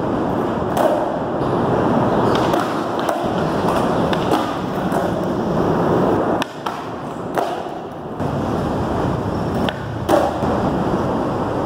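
Skateboard wheels rolling over concrete, broken by sharp clacks of the board popping, hitting the ledge and landing, several times across the stretch.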